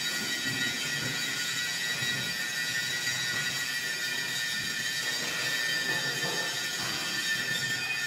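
Angle grinder grinding steel: a steady high-pitched whine over a hiss.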